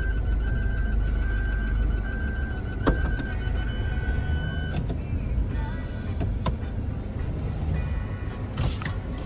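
Toyota Rush's reverse-gear warning chime beeping over and over inside the cabin while the car backs up, stopping about halfway through when it leaves reverse. A low engine and road rumble runs underneath, with one sharp click about three seconds in.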